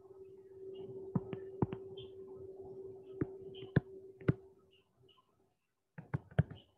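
Sharp taps and clicks of a stylus pen on a touchscreen while handwriting, some single and some in quick clusters, with a quick run of taps near the end. A faint steady hum underlies the first two-thirds, then stops.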